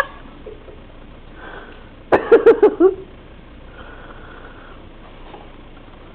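A person's short burst of laughter, about six quick pulses, starting about two seconds in; the rest is low room hiss.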